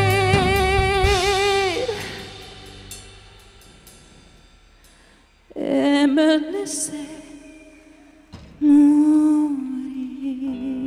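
Woman singing long held notes with vibrato over a live band. The band fades away about two seconds in, leaving a brief quiet pause, then she sings two more sustained phrases with little accompaniment, the last one beginning near nine seconds in.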